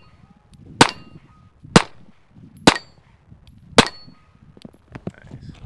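Four pistol shots, about a second apart, each followed by a short metallic ring from a struck steel target.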